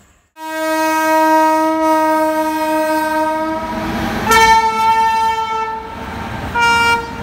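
Horn of an Indian Railways electric locomotive: a long low note, then a longer higher note, then a short higher blast near the end. The rumble of the locomotive rolling past lies underneath.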